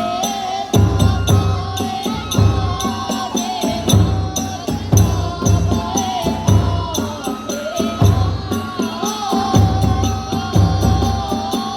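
Kagura hayashi music: a large taiko drum beating about once a second under rapid clashing of hand cymbals, with a high, wavering flute melody above.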